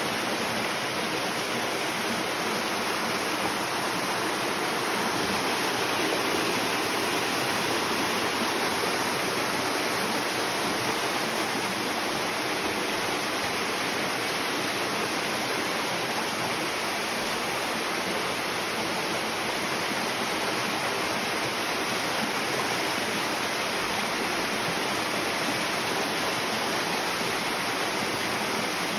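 Waterfall on a stream, water rushing and splashing steadily without a break.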